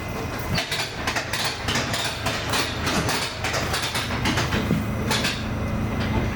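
R68 subway car running on the rails, its wheels clacking repeatedly and irregularly over rail joints above a steady rumble. A low steady hum joins in about four and a half seconds in.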